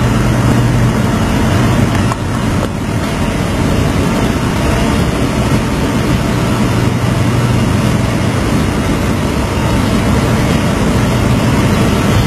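Engine of a LARC-XV amphibious cargo vehicle running with a loud, steady drone and a low hum, heard from aboard the vehicle.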